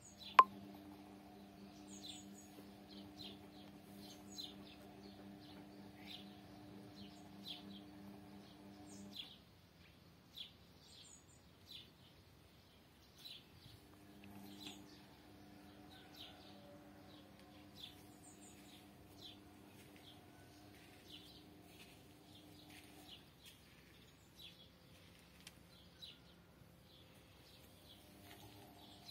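Small garden birds chirping and calling, many short high chirps in quick succession. A faint steady low hum comes and goes underneath, and there is one sharp click just after the start.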